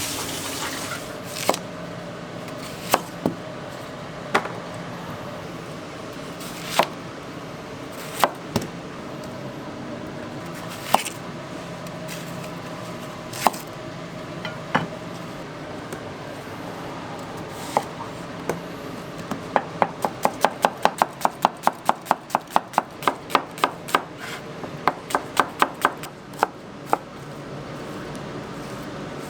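Kitchen knife chopping on a cutting board: scattered single cuts at first, then from about twenty seconds in a fast, even run of chops, about four a second, before it slows again.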